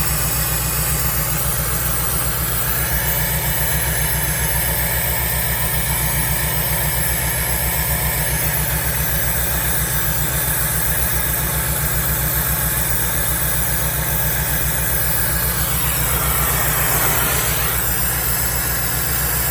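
Komatsu excavator's diesel engine idling with a steady, even low throb. A brief swooping sound rises and falls near the end.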